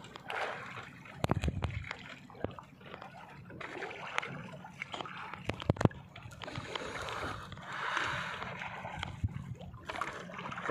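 Sea water splashing and sloshing against the hull of a small outrigger boat, swelling and easing in waves, with scattered sharp knocks, the loudest about six seconds in.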